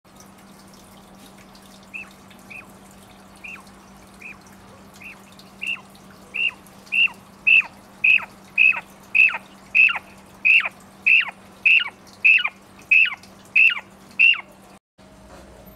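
Quail calling: a series of about twenty short whistled notes, each falling steeply in pitch, repeating a little faster than one a second. The calls start faint, grow loud from about six seconds in, then stop, over a steady low hum.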